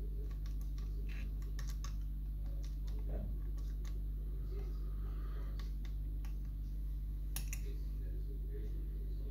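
Small, irregular clicks and ticks of a lever-lock pick working the levers inside a 7-lever safe lock, over a steady low hum.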